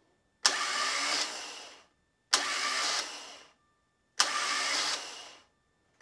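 Stock Bosch Porsche 911 starter motor spinning free on a bench test stand, with no load. It is fired three times about two seconds apart. Each run opens with a sharp click as the solenoid throws the Bendix pinion gear out, whirs steadily for under a second, then winds down.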